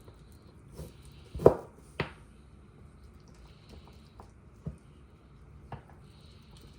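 Raw meat being handled and pressed into a metal muffin tin: a few wet squishes and knocks, the loudest about a second and a half in, followed by a sharp tap, then a couple of lighter taps.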